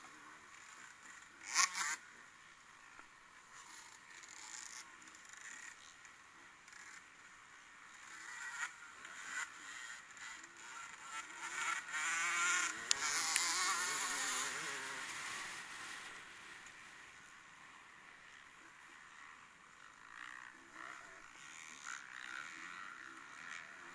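Engines of race vehicles on the circuit running at a distance, high-pitched, with one coming nearer and louder about halfway through and then fading away again. A sharp knock about a second and a half in.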